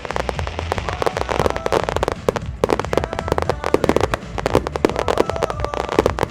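Fireworks finale barrage: a dense, unbroken run of shell bursts and crackling reports, many bangs a second with no let-up.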